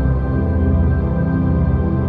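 Ambient drone music of sustained synthesizer tones built on 528 Hz and 174 Hz 'healing' frequencies, with a low throbbing hum underneath.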